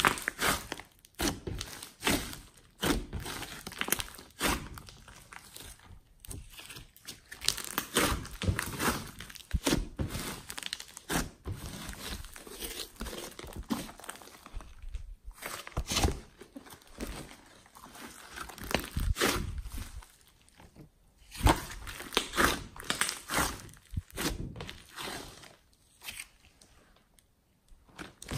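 Hands squishing, pressing and stretching a large mass of glossy slime with clay mixed in, giving irregular wet squelches and sticky pops, with a brief pause near the end.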